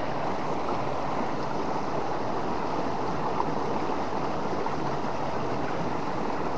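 Fast-flowing river current rushing steadily.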